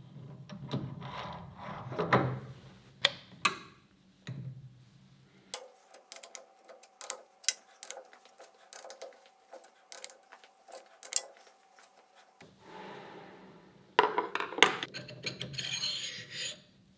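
Metal-on-metal clicks and knocks as a three-jaw lathe chuck is seated on the camlock spindle nose and its cam locks are turned with a T-handle key. Near the end, a steel bar clinks and rattles as it slides into the chuck jaws.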